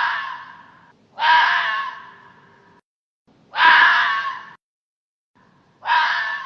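Hoary fox (Lycalopex vetulus) calling: four loud, raspy calls about a second and a half to two seconds apart, each starting abruptly and fading away over about a second.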